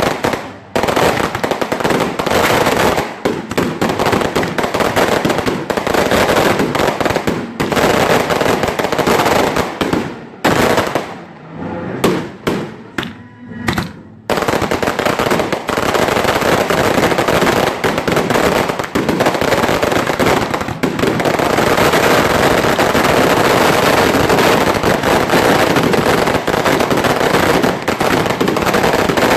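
Fireworks barrage: a rapid, near-continuous crackle of firecracker bangs. The firing thins to scattered bangs for a few seconds past the middle, then resumes nonstop.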